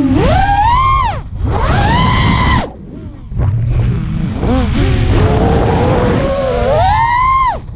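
A 5-inch 3D freestyle quadcopter's brushless motors and props whining, heard from its onboard camera. The pitch climbs sharply and falls away three times as the throttle is punched and cut, with a lull about three seconds in.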